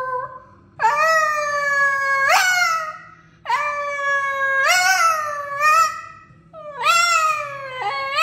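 Boston terrier howling: three long drawn-out howls, each breaking sharply upward in pitch near its end.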